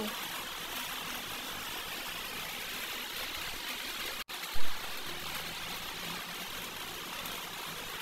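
Steady background hiss with a brief dropout a little past halfway, followed at once by a single short, loud thump.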